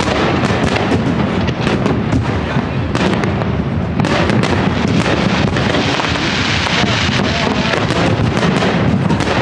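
Fireworks display: a dense, continuous run of bangs and crackles from aerial shells over a steady low rumble.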